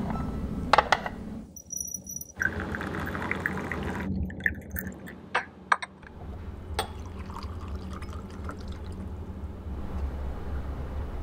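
Porcelain teaware being handled and tea poured: a few light clinks of small cups and a teapot lid, with a pouring sound about two to four seconds in, over a low steady hum.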